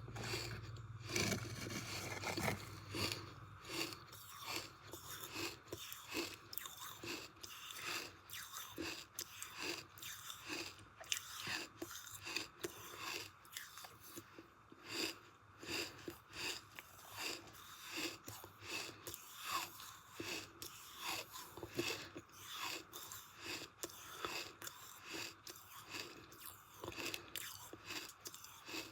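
Sand crunching: a steady series of crisp crunches, about two a second.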